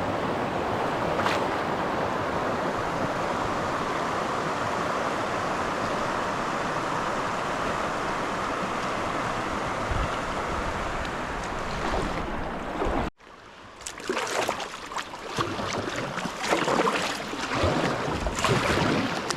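Whitewater rushing steadily around a kayak for about thirteen seconds. It cuts off suddenly, then quieter moving water follows with short, irregular splashes.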